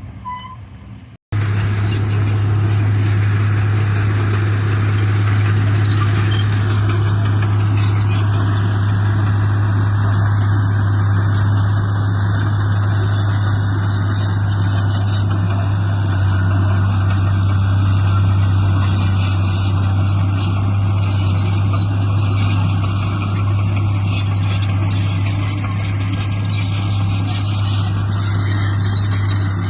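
Heavy diesel engine of earthmoving machinery running steadily with a constant low drone. It starts abruptly about a second in.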